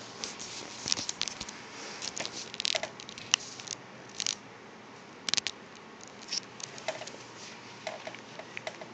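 A dog close to the microphone making irregular short clicks and brief snuffling, smacking noises, with gaps of a second or so between clusters.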